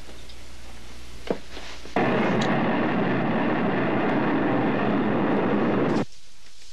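Roar of an intercontinental ballistic missile's rocket motor at lift-off from its silo. It starts abruptly about two seconds in and cuts off suddenly about four seconds later.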